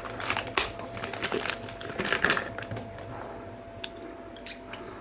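Rustling and clicking from a plastic washing-machine hose and its fittings being handled and unscrewed. The noise is busy for about the first half, then thins to a few separate clicks.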